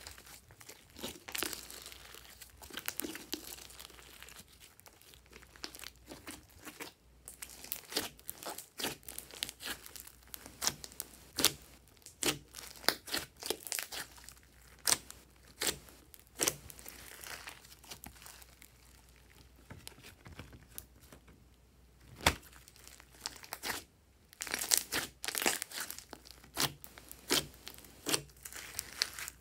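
Hands squishing, stretching and poking a large mass of glossy slime: irregular sticky crackles and sharp pops, with a burst of louder pops near the end.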